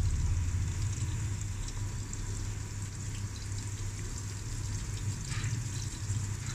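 Sliced onions sizzling steadily in hot ghee in an aluminium pot as they fry to brown, over a steady low hum.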